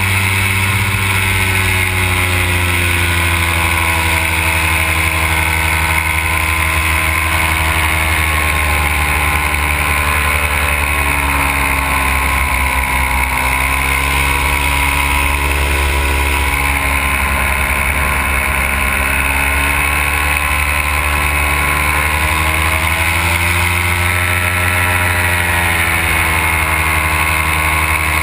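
Powered paraglider's Simonini two-stroke engine and propeller running steadily in flight. The pitch eases down and climbs back about halfway through, and again near the end, as the throttle changes.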